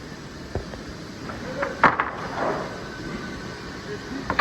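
Sawmill green chain running with a steady mechanical rumble while fresh-sawn boards knock and clatter on it: a dull knock about half a second in, a loud sharp clatter just before two seconds, and another clatter near the end.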